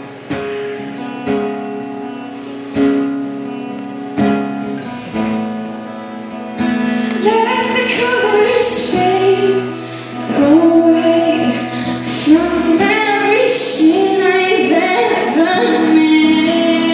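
Live acoustic song: plucked guitar notes ring out one by one, and from about seven seconds in a woman's voice sings a melody over the guitar.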